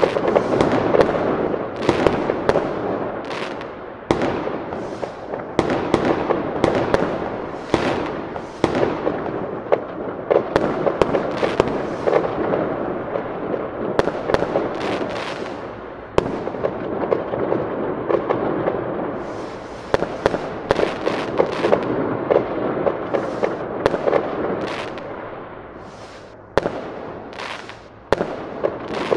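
Fireworks display: a dense, continuous barrage of bangs and crackling bursts, many shells going off close together.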